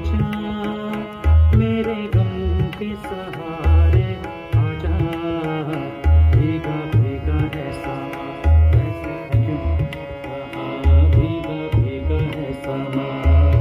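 Live music: a man singing to a Yamaha electronic keyboard, over a tabla-style drum rhythm with a deep bass beat about every two and a half seconds.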